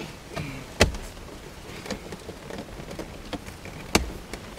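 Plastic dash trim and radio surround of a Toyota Land Cruiser 100 Series being pressed back into place: scattered clicks and knocks, with two sharp snaps, one about a second in and one near the end.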